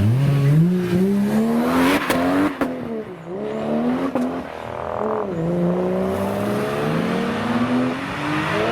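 Toyota Supra's 2JZ inline-six accelerating hard through the gears. Its pitch climbs steadily in each gear and drops at each upshift, about two and a half seconds in, again near the middle, and at the end. A few sharp cracks come around the first shift.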